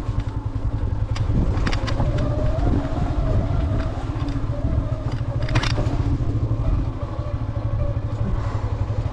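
Motorcycle engine running steadily in a low throb while riding over a rough, stony track, with occasional clatter and knocks.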